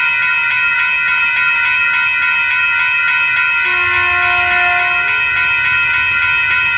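Railroad grade-crossing bell ringing in a steady, fast repeating rhythm. About halfway through, an approaching Caltrain train sounds its multi-note horn for about a second and a half.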